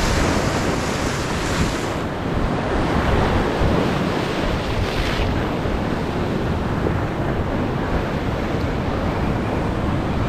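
Ocean surf washing in against the shore, with wind buffeting the microphone. A wave surges loudest in the first two seconds and again briefly about five seconds in.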